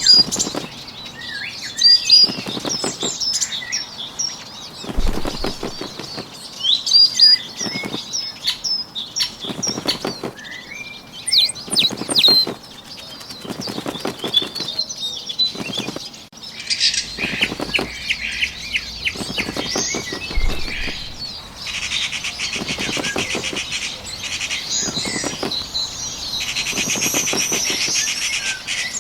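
Sound effects of a small bird's wings flapping in repeated short flurries, over chirping songbirds; about halfway through, a dense, steady trilling chorus sets in under the chirps.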